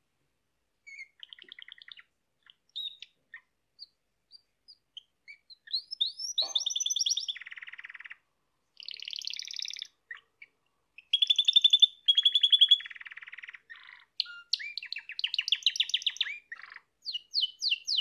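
Yellow domestic canary singing: a few scattered chirps at first, then a long varied run of rapid trills and rolls, the loudest a fast, even, high trill about two-thirds of the way through.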